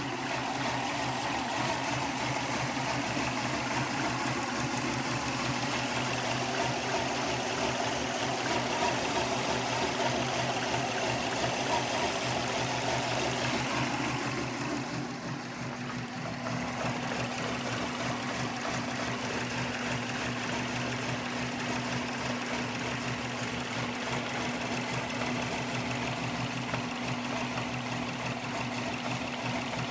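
2002 Subaru WRX's turbocharged flat-four engine idling roughly, which the owner suspects comes from a vacuum leak, with a vacuum reading of only -10. Its level dips briefly about halfway, after which the engine note settles into a steadier hum.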